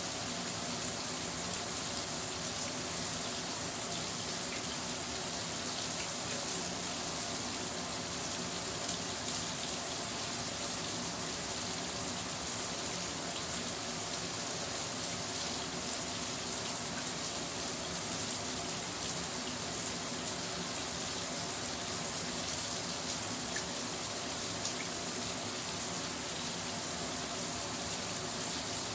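Shower running steadily: an even spray of water pattering down.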